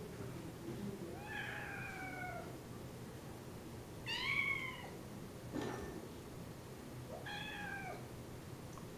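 A cat meowing three times, a few seconds apart, the middle call the shortest and loudest.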